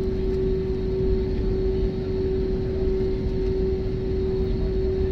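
Airliner cabin noise: a steady rumble of engines and airflow with a constant hum running through it.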